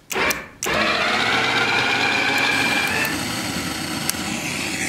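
Electric motor of a GLK motorcycle landing gear, switched from the handlebar with the bike's engine off. It gives a brief start and stop, then runs steadily with a whine that rises slightly in pitch and changes tone about three seconds in.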